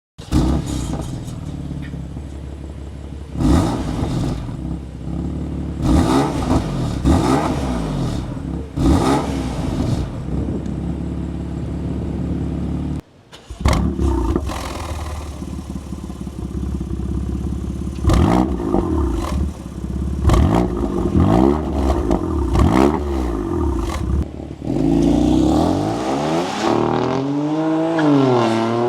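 BMW F82 M4's twin-turbo inline-six idling through its exhaust, with repeated quick throttle blips that rise and fall sharply. The sound drops out briefly near the middle, then a longer rev rises and falls twice near the end.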